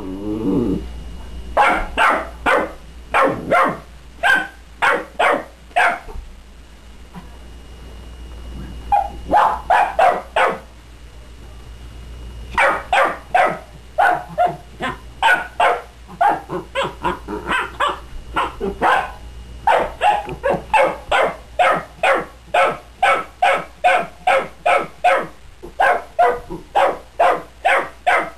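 Dog barking repeatedly, about two to three barks a second, in runs separated by short pauses, then barking almost without a break through the second half.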